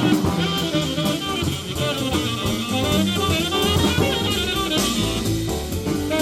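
Live jazz quartet of tenor saxophone, piano, double bass and drum kit playing a swing tune together, the saxophone carrying the line over the bass and drums.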